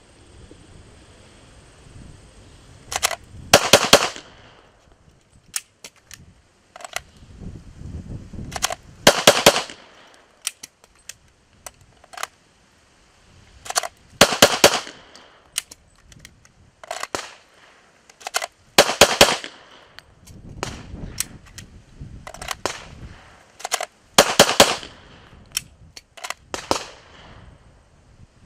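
Pistol fired in quick bursts of two or three shots, a burst about every five seconds, five bursts in all, with single fainter clicks between the bursts.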